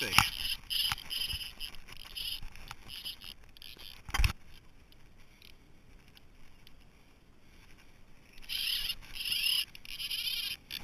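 Fly reel's click ratchet buzzing in short bursts as line is pulled off the spool by hand, with one sharp knock about four seconds in. The rattling stops for a few seconds and resumes near the end.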